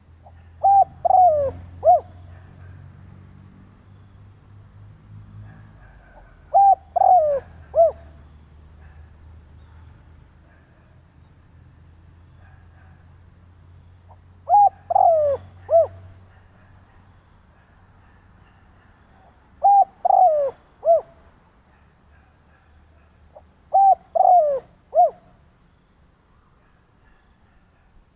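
Spotted dove (Streptopelia chinensis) cooing: five phrases of three or four short, falling coos, each phrase a few seconds apart. This is a decoy dove's calling song, used to draw in wild doves.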